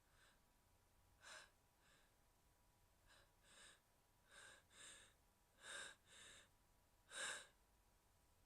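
A woman's short, breathy gasps and sniffs, about ten, coming irregularly and growing louder, the loudest near the end: the catching breaths of a sneeze building up.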